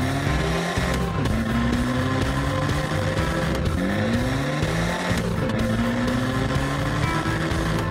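Cartoon race-car engine sound effects, revving up again and again with a rising whine every second and a half or so, like a car climbing through its gears, over steady background music.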